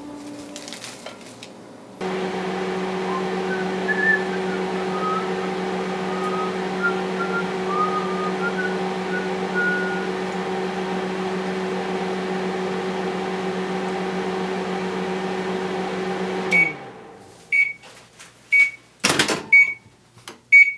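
Microwave oven running with a steady hum while dried duros puff up inside it with faint crackles and squeaks. The oven shuts off near the end and beeps about five times, roughly once a second, with a couple of sharp clicks among the beeps.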